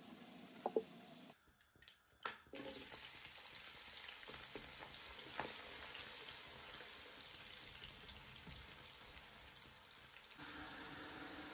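A few light knocks, then sliced onions sizzling as they fry in hot oil in a pot and are stirred with a spatula: a steady hiss with small crackles from about two and a half seconds in.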